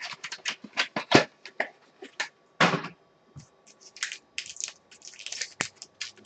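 Trading cards and a foil card wrapper being handled by hand: a run of short clicks and crackles, a louder rustle about two and a half seconds in, and crinkling of the foil in the second half.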